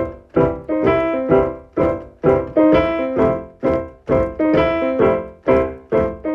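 Solo piano music: chords or notes struck at about two a second, each left to ring and fade, in a steady repeating pattern.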